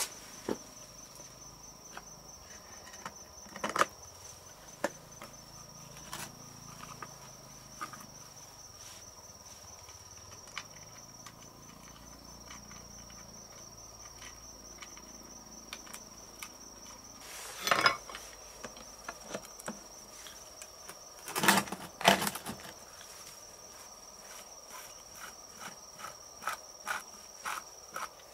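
A steady, high-pitched insect trill with scattered knocks and clicks. The loudest clatters come about two thirds of the way in and again a few seconds later.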